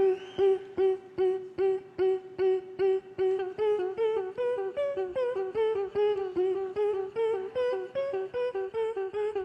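A performer's voice making short, clipped, pitched notes, about two and a half a second with a click at the start of each, like a plucked instrument. The notes hold one pitch at first, then form a melody stepping up and down from about three and a half seconds in.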